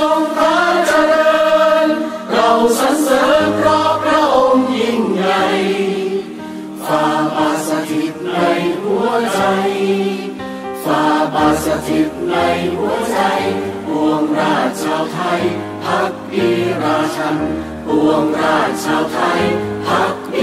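Music: a choir singing long, slowly gliding notes over an accompaniment with a slow-moving bass line.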